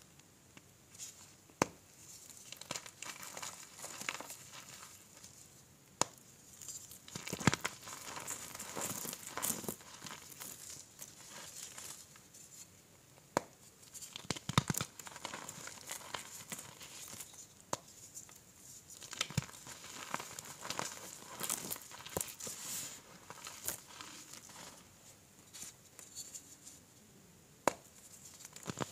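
Hands crushing and crumbling blocks of reformed gym chalk into powder: a steady gritty crunching, with sharp snaps every few seconds as chunks break apart.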